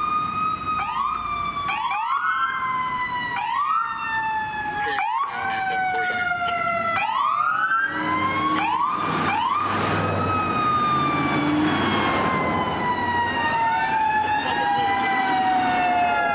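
Several emergency vehicle sirens from police cars and fire apparatus responding code 3: repeated quick rising yelp sweeps layered over long, slowly falling wail tones. Around the middle a vehicle's engine passes close.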